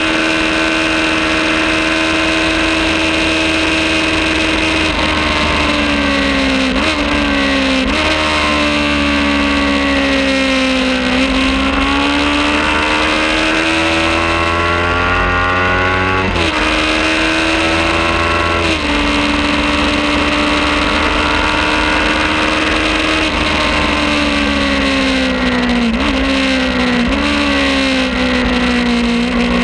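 Kawasaki Ninja 400 parallel-twin engine at high revs on track, pitch sagging as it eases off and climbing again as it pulls. Sharp pitch jumps from gear changes come about seven seconds in, around the middle and near the end.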